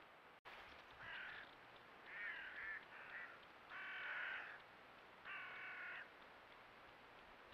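A crow cawing about five times, harsh calls each about half a second to a second long, over a faint steady hiss.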